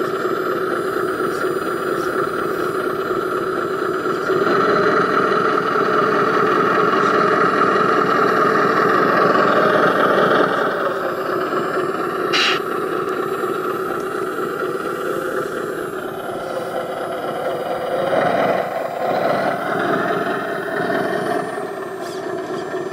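Steady mechanical running of an RC model's hydraulic tipping system as the dump trailer's bed lifts. It gets louder about four seconds in and eases off after about ten seconds, with a single sharp click midway.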